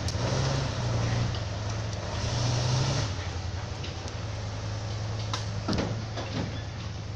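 Diesel engine of a loaded logging truck running steadily as it drives off down a dirt forest road, its sound easing a little after about three seconds. A few short knocks come near the end.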